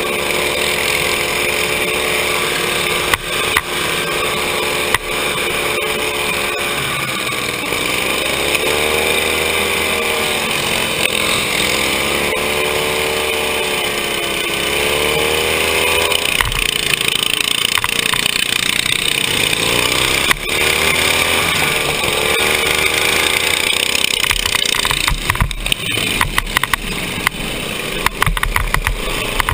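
Riding lawn mower engine in a derby, heard from on board, running hard with its pitch rising and falling over and over as the throttle is worked. Near the end come a quick series of knocks and rattling bangs as the mower crashes and flips.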